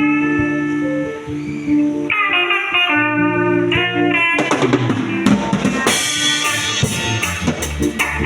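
Instrumental music: sustained guitar-like notes, joined about four seconds in by a drum kit beat and fuller band.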